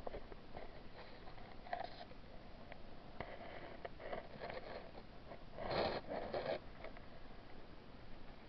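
Underwater camera housing brushing and bumping against water-lily stems and leaves: scattered muffled scrapes and small clicks, with a louder rustling scrape about six seconds in.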